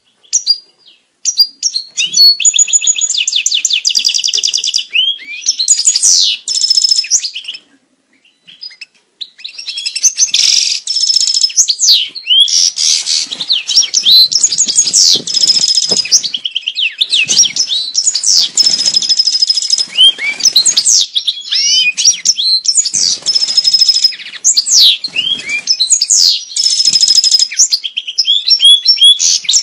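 European goldfinch singing its courtship song: long runs of rapid twittering, fast trills and buzzy notes, with a short pause about eight seconds in.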